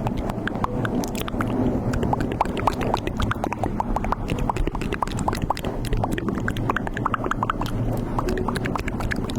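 Dense, irregular wet popping and crackling, many small bubbly pops in quick succession over a steady low rumble.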